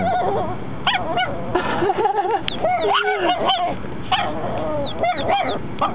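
A 4-month-old Chihuahua puppy barking: a run of short, high, honking yaps, several a second at times.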